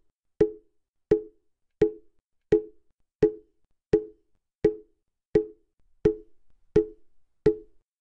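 A mokugyo, the hollow wooden fish drum of Buddhist temples, struck at a slow, even pace, about three strikes every two seconds. Each strike is a short hollow knock with a brief pitched ring that dies away quickly.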